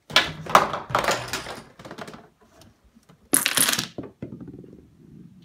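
A homemade Rube Goldberg machine's small hard parts clattering and knocking together in a quick run of rattles for about the first second and a half. About three seconds in comes a short, loud clatter as a row of dominoes topples onto a TV remote.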